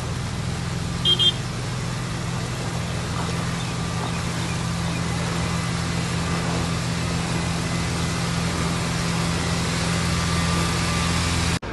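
A 4x4's engine running steadily as it drives slowly through floodwater, a constant low drone. About a second in come two short high beeps.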